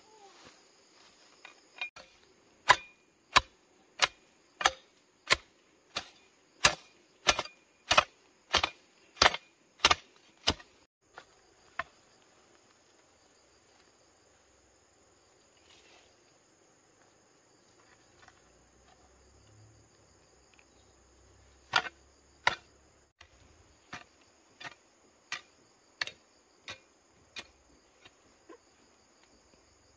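Hand hoe chopping into dry, grassy soil in steady strokes, about one and a half a second: a run of about a dozen strikes, a pause of roughly ten seconds, then another run. Insects buzz steadily in the background.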